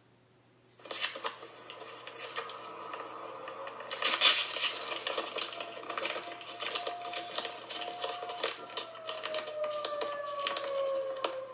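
Distant outdoor warning siren sounding two tones, held steady and then winding down in pitch from about eight seconds in. Dense crackling clicks run over it, loudest around four seconds in.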